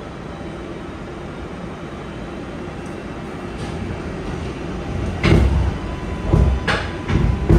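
R142A subway train rolling on the rails, a steady rumble that slowly grows louder as it picks up speed. From about five seconds in come loud clanks and thumps of the wheels over rail joints or switches, about five of them in two and a half seconds.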